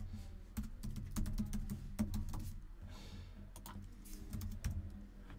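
Typing on a computer keyboard: irregular key clicks in short runs as an email address is typed in.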